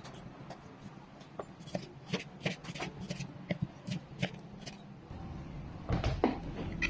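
Kitchen knife slicing tomatoes on a wooden cutting board: short taps about twice a second as the blade meets the board. Near the end a low hum comes in and a few louder knocks follow.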